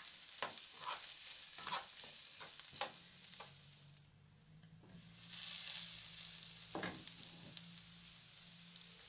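Rice with onion and carrot frying in oil in a nonstick pan, sizzling, with a metal spoon scraping and clicking against the pan as it is stirred in the first few seconds. The sizzle briefly drops away about four seconds in, then comes back with a few more clicks.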